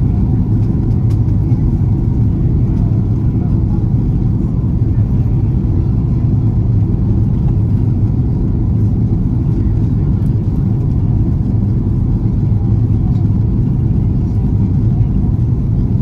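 Steady low cabin rumble inside an Airbus A330-200 airliner, unchanging throughout.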